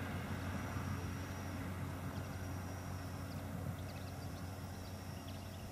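Steady low engine drone from a distant motor, slowly fading, over faint outdoor background noise.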